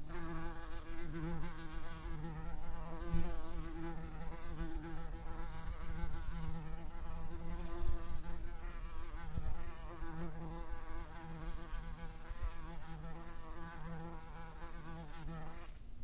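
Yellow jacket wasp buzzing, a steady pitched buzz that wavers a little in pitch, cutting off near the end.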